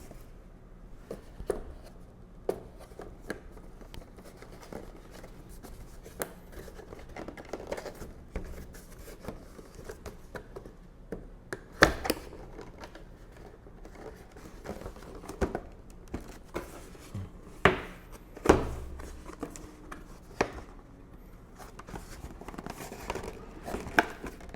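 Packaging being handled and opened by hand: scattered clicks, knocks and crinkling, with sharper knocks about halfway through and twice more a little later.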